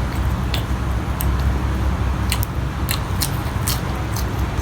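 Close-up chewing and lip-smacking while eating, a string of short wet clicks at irregular intervals, over a steady low rumble.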